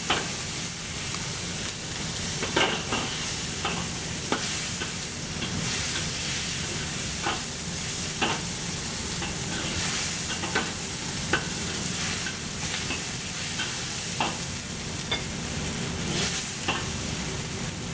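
Asparagus sizzling and steaming in a wok with cooking wine and water just added, while a metal wok spatula scrapes and clinks against the wok in irregular strokes every second or two.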